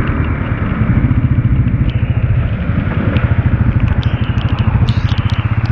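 Motorcycle engine running with a steady, rapid pulsing exhaust beat, under a heavy hiss of rain and wind.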